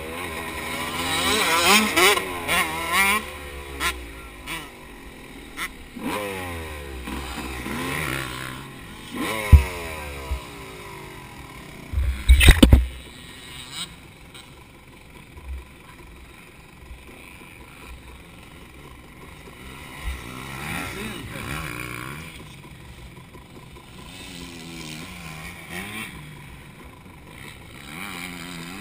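Motocross dirt bike engine revving hard, its pitch climbing again and again as it accelerates through the gears, with wind rushing over the microphone. Loud thumps about ten and twelve seconds in; the engine runs quieter through the second half.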